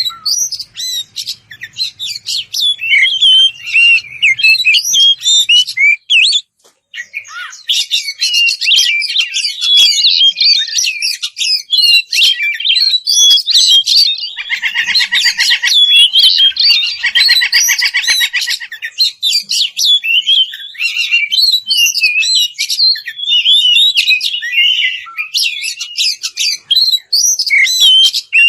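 Oriental magpie-robin (kacer) singing a loud, continuous, varied song of whistles and chirps, the open full song used as a lure to provoke rival males. Harsh buzzing rattles break in twice around the middle, and the song pauses briefly about six seconds in.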